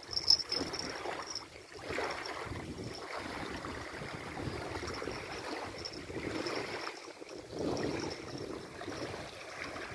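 Gusty wind rushing over the microphone, rising and falling in uneven swells, with a single knock just after the start.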